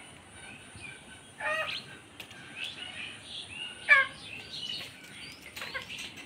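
Birds chirping and calling, with two louder calls about a second and a half and four seconds in.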